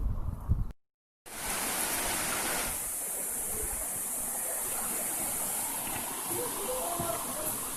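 A low rumble cuts off abruptly under a second in. After a brief gap, waterfall water rushes steadily.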